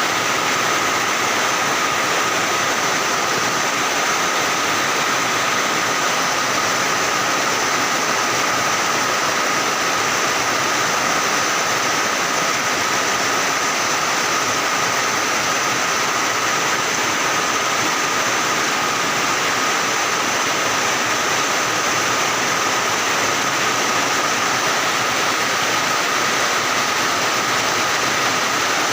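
Rain pouring down steadily, an even rushing downpour with no let-up, with a couple of faint steady high tones running through it.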